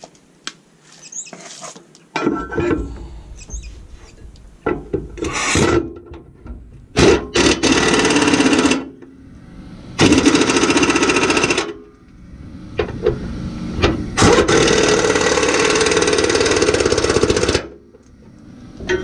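Impact wrench hammering bumper-bracket bolts tight on a pickup's frame, in three runs of a couple of seconds each. Scattered clinks of hardware being handled come before the first run.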